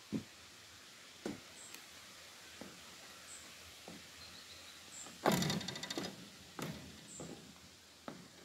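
Rubber-soled high-top sneakers tapping and stepping on wooden footbridge planks: soft knocks about every second or so, with a louder, crackling scuff about five seconds in, as from the sole grinding on the boards and dry leaves.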